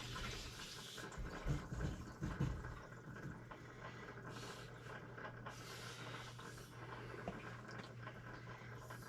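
Water pump running with a steady low hum as it pressurizes the house's plumbing after being switched on, with a few low thuds about a second and a half in.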